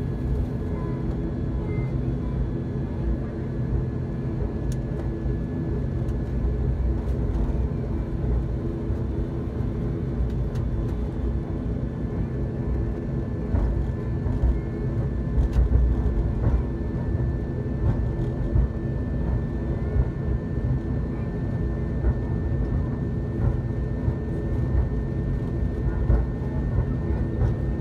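ATR 72-600's Pratt & Whitney PW127M turboprop engines and propellers droning at taxi power, heard inside the cabin. It is a steady hum of several held low tones with a faint thin whine above it, over a low rumble.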